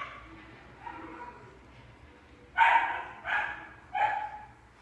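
Small dog barking three short times in quick succession, the barks a little over half a second apart, starting about halfway through.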